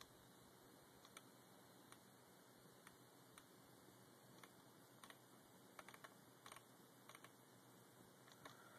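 Near silence broken by faint, scattered clicks, single or in small clusters, coming a little more often in the second half.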